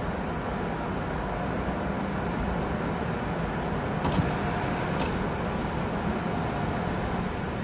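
Steady running noise of an automatic tunnel car wash's machinery and water spray, heard from inside a waiting car. There is a light knock about four seconds in and another about a second later.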